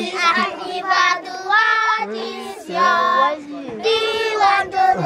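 Group of children singing together in short, held phrases.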